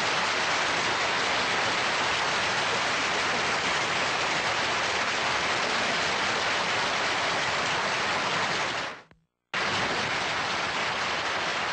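Studio audience applauding steadily after a song. About nine seconds in, it cuts out to silence for about half a second, then resumes.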